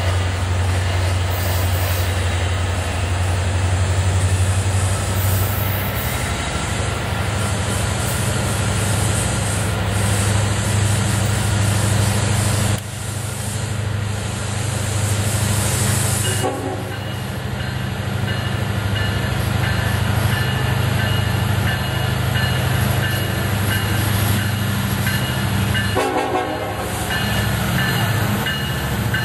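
Freight train led by two EMD SD70ACe diesel locomotives approaching, their engines making a deep steady drone, with the horn sounding.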